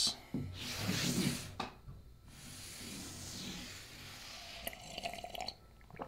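A person slurping a sip of coffee from a mug: a wet, noisy slurp about half a second in, then a softer airy hiss fading away, and a few small clicks near the end.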